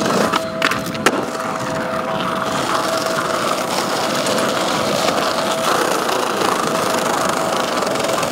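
Skateboard wheels rolling over tiled pavement in a steady rumble, with two sharp clacks of the board about half a second and a second in.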